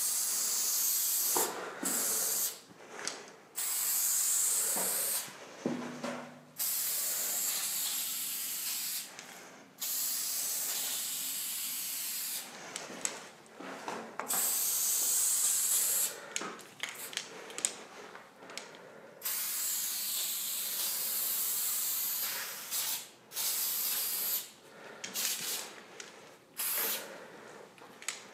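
Aerosol spray paint can hissing in bursts, some held for several seconds and others short quick taps, with brief pauses between.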